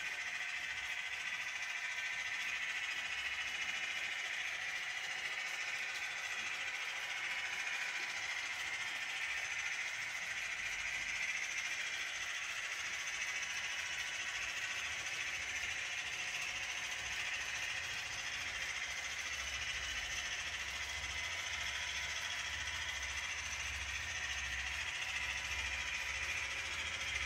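Long model-railway freight train rolling along the track: a steady rattling hiss of many small metal wheels on the rails. A low hum joins about ten seconds in.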